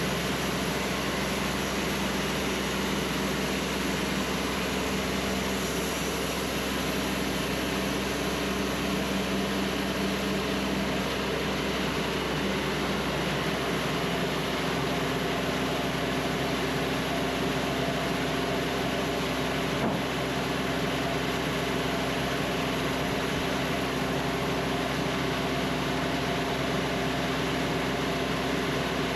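Cook's AC-36 band sawmill running with a steady mechanical hum, its pitch shifting upward about halfway through, with a single small knock later on.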